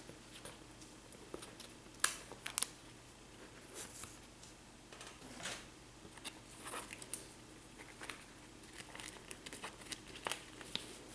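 Plastic comic sleeve and its taped paper flap faintly crinkling as they are handled and slit open with a knife, with a few sharp clicks scattered through.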